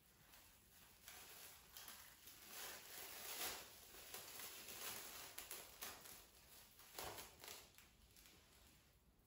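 Faint crinkling and rustling of plastic cling film as it is handled and pulled off its roll.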